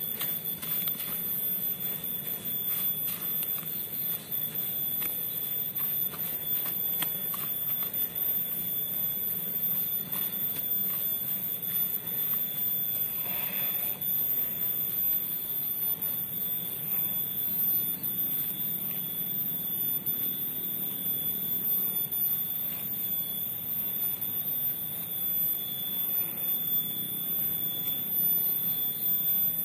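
A steady high-pitched drone runs throughout. In the first several seconds there is faint scratching as soil mixed with burnt rice husk and fertiliser is stirred by hand.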